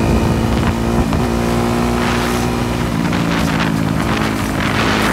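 Honda sport quad's engine running steadily as it is ridden in a wheelie, its pitch dropping slightly about three seconds in, with some wind noise.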